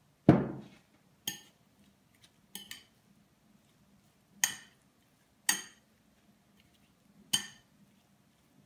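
A single heavy knock on the table about a quarter second in, then five separate clinks of a metal fork against a ceramic bowl as sliced radishes are stirred in their dressing.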